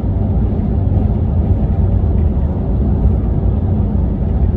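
Steady low road rumble of a car driving at speed, tyre and engine noise heard from inside the vehicle.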